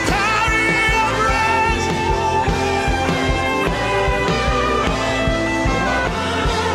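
Worship music: held keyboard-like chords over a steady low beat.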